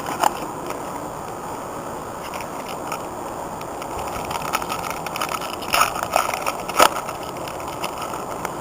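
Trading cards being handled and flipped through by hand: scattered short snaps and rustles, louder around the middle, over a steady outdoor background hiss.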